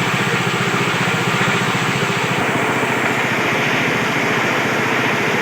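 Small engine running steadily with a rapid, even pulse, the single drive for a combined flour mill, chili-paste grinder and coconut grater.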